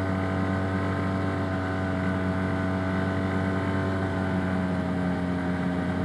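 Arctic Cat Wildcat Trail UTV's engine running steadily at an even pitch while riding along a trail.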